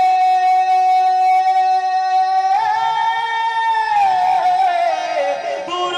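A man singing a naat (Urdu devotional poem) in a high voice. He holds one long note for about two and a half seconds, steps up to a higher note and holds it, then glides down, and a new phrase begins near the end.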